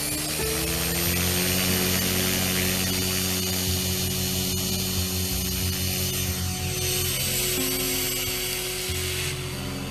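Electric RC helicopter (Align T-Rex) spooling up: the motor and rotor whine rises in pitch during the first second and then holds steady at flying speed.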